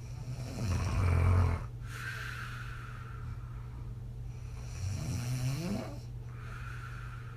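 A woman asleep on her back snoring: two breaths, each a loud low snore followed by a softer breath blown out through slack lips. The second snore rises in pitch. A faint steady low hum sits underneath.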